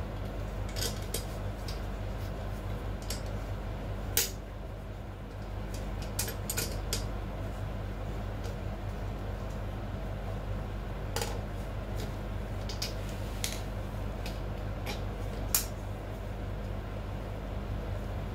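A steel combination wrench clicking and clinking on a nut at the hydraulic pump housing of a barber chair's steel base. The clicks come in scattered, irregular metal ticks, with two louder clanks, one about four seconds in and one near the end, over a steady low hum.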